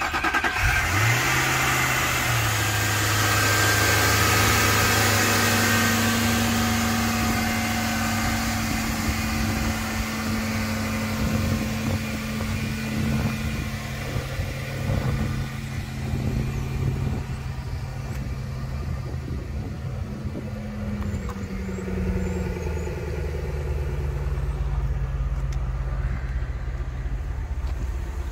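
Cold start of a 2002 Ford Thunderbird's 3.9-litre V8: the engine catches and its revs flare up about a second in, then it runs at a fast, steady cold idle that drops a notch about three-quarters of the way through as it begins to settle.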